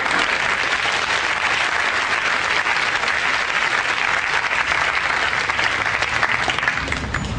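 Studio audience applauding, a dense patter of many hands clapping that dies away near the end as a low rumble comes in.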